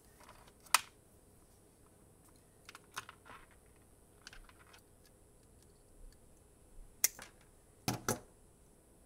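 Hand tools and wires being handled on a pegboard test board and bench: scattered light clicks and taps, a sharp click under a second in, and a louder pair of knocks near the end as wire crimpers are picked up.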